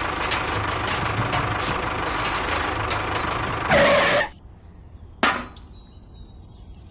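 Steady engine running as the toy tractor drives, cut off by a short loud burst a little past halfway; after that it is quiet apart from one sharp click.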